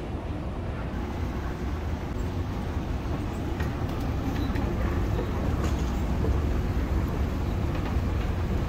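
Airport moving walkway running: a steady low rumble that grows slightly louder, with a few faint clicks.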